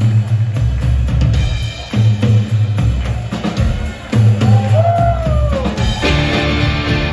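Rock band playing live, the drum kit loudest with heavy bass drum and snare hits. About two-thirds of the way in a pitched note slides up and falls back over the drums, and near the end the guitars and keyboard swell in fuller.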